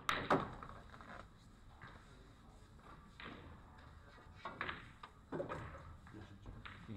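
A sharp knock just after the start, then several fainter knocks and shuffles spaced a second or two apart, echoing in a large hall.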